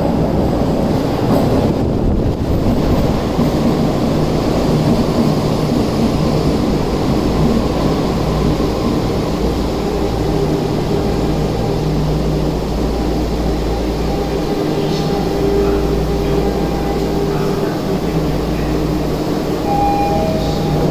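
Toei Oedo Line linear-motor subway train running into an underground station platform, rumbling at first, then slowing with a steady whine and coming to a stop. Short tones sound near the end as the train doors and platform screen doors open.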